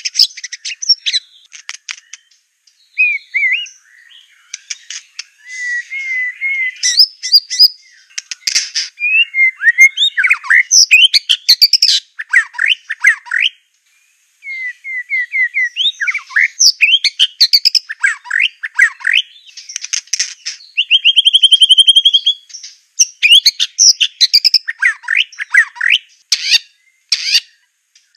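White-rumped shama of the Aceh murai batu type singing a long, varied song of loud whistled phrases, sweeping notes and fast chattering trills, broken by short pauses. About halfway it pauses for a second, and a little later gives a steady run of rapid repeated notes.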